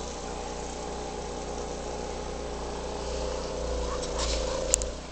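Snowblower engine running steadily, getting a little louder about three seconds in, with one sharp click near the end.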